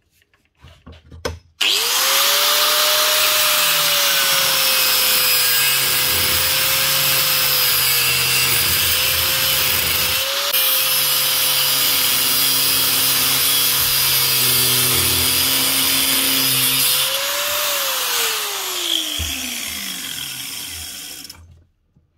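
Angle grinder with a cutting disc slicing into the steel chuck of a DeWalt cordless drill to free a seized chuck: a steady high whine over a harsh hissing grind, starting suddenly about two seconds in. Near the end the grinder is switched off and its whine falls away as the disc spins down.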